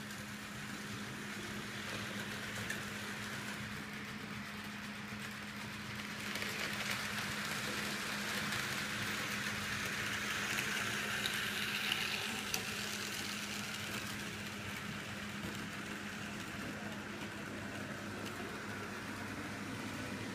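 Model trains running on a large layout: a steady whirring hiss of small wheels and motors on the track over a low steady hum, growing a little louder midway through.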